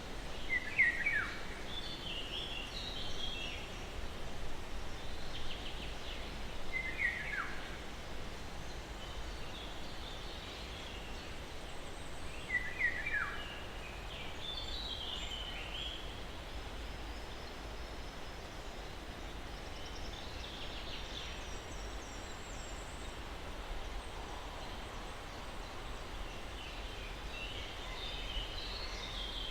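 Wild birds calling: three sharp down-slurred calls about six seconds apart, with scattered higher chirps between them, over steady low background noise.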